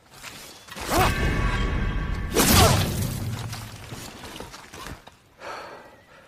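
Odachi sword blades clashing in a combat sound effect: a sudden metallic clash with a ringing tail about a second in, a louder clash about a second and a half later that rings and fades over a couple of seconds, then a fainter strike near the end.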